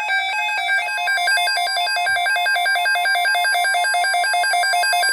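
Emergency alert tone for a tornado watch: loud electronic beeping that alternates between two pitches, then turns into quicker even beeps about a second in, over a faint steady tone.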